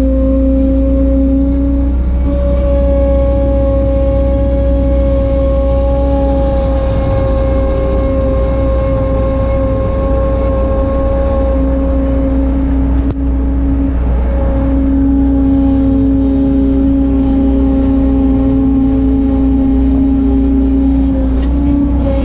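Engine of a 1988 Bobcat 743 skid steer running steadily as the machine works, with small shifts in its pitch.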